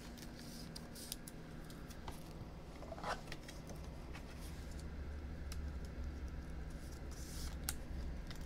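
Faint clicks and rustles of a trading card and a clear plastic card case being handled, with a few sharper ticks, over a low steady hum.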